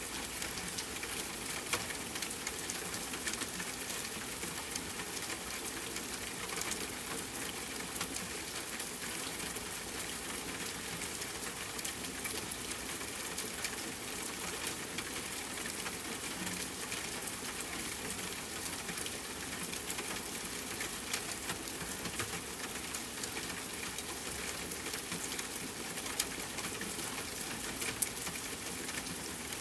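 Steady rain falling, an even hiss full of small drop ticks, with a few sharper single drop hits near the end.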